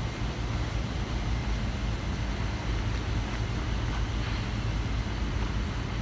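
Steady low rumble with a constant hiss, unchanging throughout, with no distinct events.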